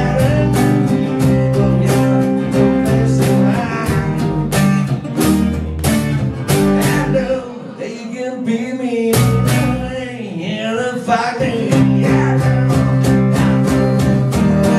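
Live acoustic band playing: strummed acoustic guitars over an upright bass, with regular percussion hits keeping the beat. About seven and a half seconds in, the bass and beat drop out for a moment, then come back in full.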